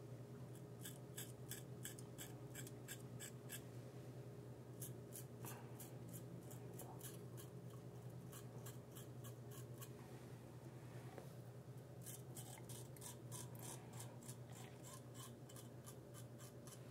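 Rockwell R1 double-edge safety razor scraping through lathered stubble on the upper lip. Faint, quick short strokes come about four a second, in three runs with pauses between, over a steady low hum.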